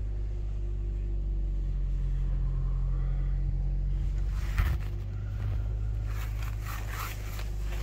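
A 1994 Toyota Carina's engine idling steadily. There is a single sharp knock about four and a half seconds in and a few short clatters near the end.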